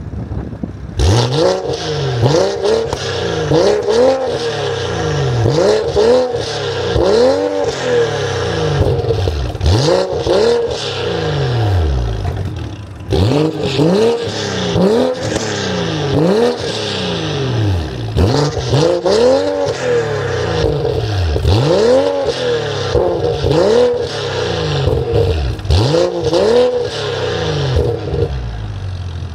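BMW X3 M40i's B58 3.0-litre turbocharged straight-six, fitted with a 200-cell downpipe and OPF delete, being revved repeatedly while standing still, heard at the exhaust tips. It blips up and falls back about once a second or two, with a short pause about halfway through.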